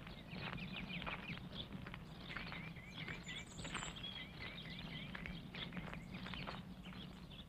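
Faint room ambience: a steady low hum with scattered light clicks, and two quick runs of small bird-like chirps about three and four seconds in.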